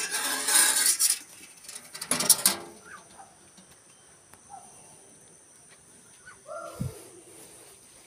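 Rustling and rattling of the wire-mesh cage and hand against it, loudest in the first second and again about two seconds in, then a few faint chirps from small cage birds and a short call about seven seconds in.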